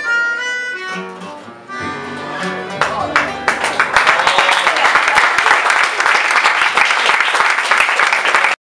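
Live harmonica and guitar music, giving way about three seconds in to audience applause that runs on until it cuts off abruptly.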